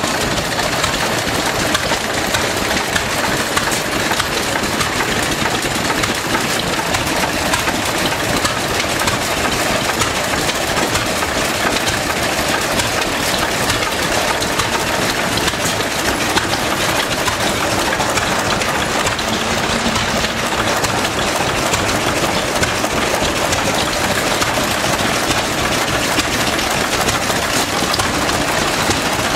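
Vintage stationary engines running steadily together, a Ruston & Hornsby engine nearest, in a continuous rapid mechanical clatter.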